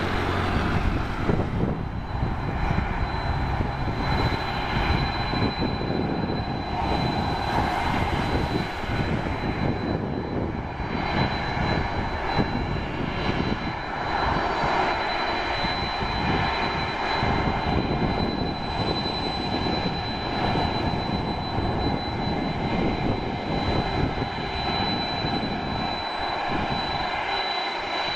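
Boeing 767-300 freighter's twin General Electric CF6 turbofans running at low taxi power as the jet turns onto the runway: a steady high whine over a continuous rumble.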